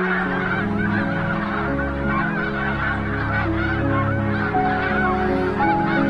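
A large flock of snow geese calling, a dense continuous chorus of overlapping high honks, over background music with long held notes.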